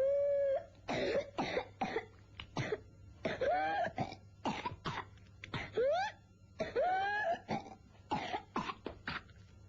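A boy's paroxysmal whooping-cough (pertussis) fit: rapid runs of short, spasmodic coughs, broken several times by a drawn-in breath with a high-pitched, rising whoop.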